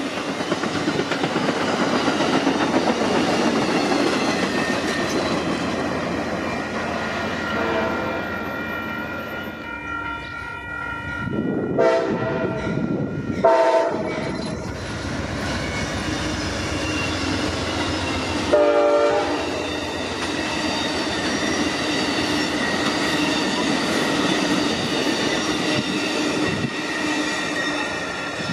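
Amtrak bilevel passenger cars rushing past close by with steady rail and wheel noise. Then the horn of a GE P42 locomotive sounds three short blasts as the train approaches, and its Superliner cars roll past with a steady clatter of wheels on rail.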